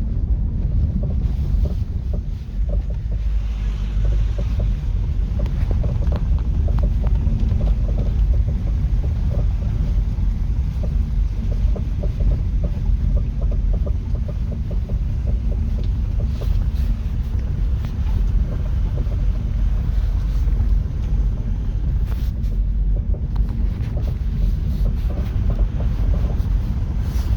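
A Vauxhall/Opel Astra K on the move: steady low road and engine rumble with many short knocks running through it, the knocking fault the car has.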